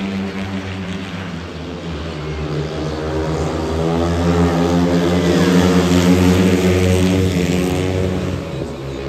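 Speedway bikes' 500 cc single-cylinder methanol engines racing round the track, growing louder as the pack comes past close about halfway through, then easing off.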